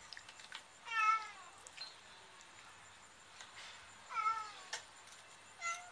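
Domestic cat giving three short meows, the first two falling in pitch, while it gnaws on an anting-anting (Acalypha indica) root, a root that cats crave.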